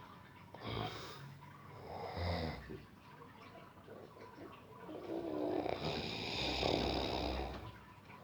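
Deep-sleep snoring: two short snores in the first few seconds, then a longer snore of about three seconds starting around five seconds in.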